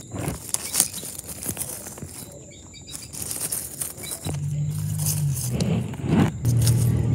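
Dry leaves and twigs rustling and crunching as toy figures and the phone are pushed through leaf litter. From about four seconds in, a low steady drone like a motor joins underneath and shifts down in pitch a couple of times.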